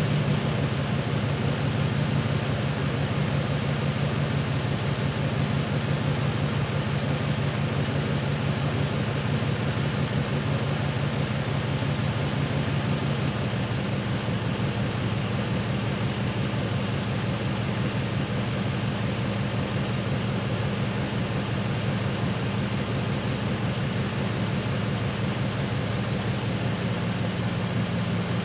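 Truck engine idling steadily, a low even hum.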